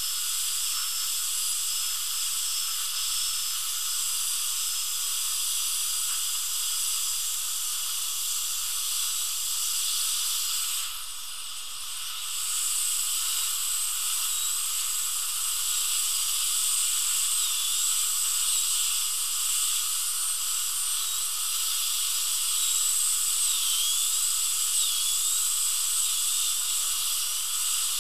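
Dental handpiece with a bur running steadily, cutting laterally into the stripped head of an implant occlusal screw to free it. It lets up briefly about eleven seconds in, and its pitch dips slightly now and then in the second half.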